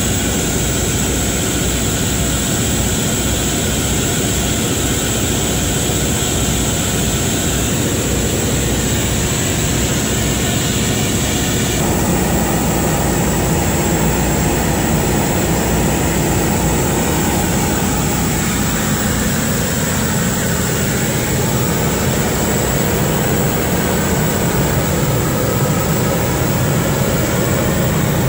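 Caterpillar XQ1475 generator set running steadily during a load test: a loud, constant engine drone with a continuous high-pitched whine over it. About twelve seconds in, the sound shifts lower and fuller.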